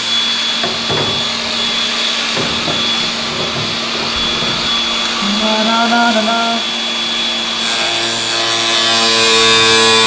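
Electric power sander running against a body panel: a steady motor whine over a rubbing, abrasive noise. About three-quarters of the way through, a louder steady buzz joins in.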